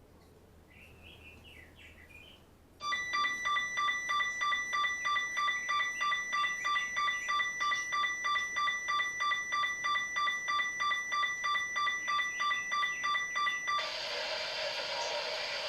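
Weather radio alert alarm beeping rapidly, about four beeps a second, as a two-tone electronic alarm that starts about three seconds in and runs for about eleven seconds. Near the end it stops and a steady hiss takes over.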